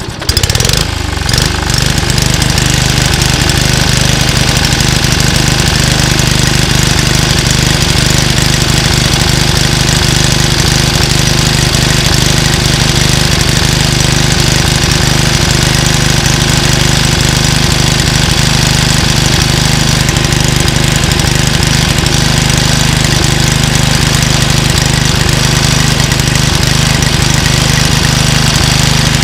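Small Suzuki four-stroke engine on an old Toro walk-behind lawn mower catching at the very start and coming up to speed, then running steadily and evenly.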